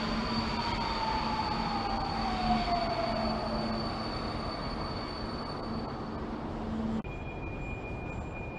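Budapest line M4 Alstom Metropolis metro train pulling into the platform and braking to a stop, its electric drive whining down in pitch over the first few seconds. About seven seconds in the sound cuts to a quieter station hum with a steady high tone while a train stands at the platform.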